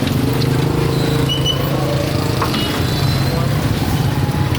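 A steady engine hum at an even pitch, with faint voices in the background.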